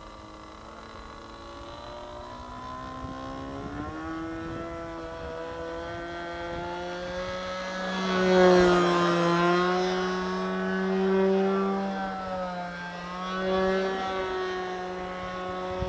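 Engine of an RC Edge 540 model aerobatic plane fitted with a can muffler, running steadily in flight as a buzzing drone. It grows loudest about halfway through as the plane passes close, with the pitch sweeping down and back up, then swells twice more as it manoeuvres.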